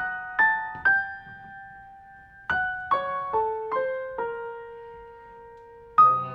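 Piano playing a slow, sparse line of single high notes, each struck and left to ring and fade. A louder, fuller chord comes in near the end.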